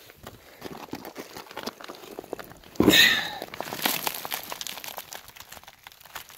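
Loose, broken-up rock crunching and crackling in a dense run of small clicks, with one louder, brief rushing sound about three seconds in.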